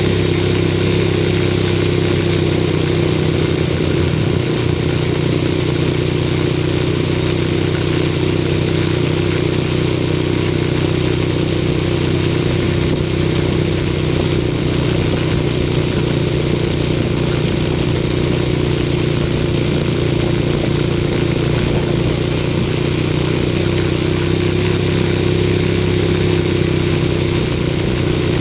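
ATV engine running at a steady speed, an even engine drone that neither rises nor falls much.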